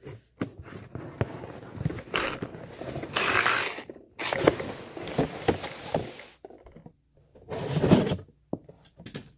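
Box packaging scraping and rustling as a toy truck is pulled out of its box, in several bursts with sharp clicks and knocks.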